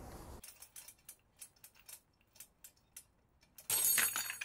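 Light irregular clicks, about three a second, as the pulling rig's hook and chain take up tension on a vertically printed PLA test piece. About 3.7 s in comes a sudden loud crack with metallic clatter and ringing: the piece breaks and the steel hook and chain jerk free.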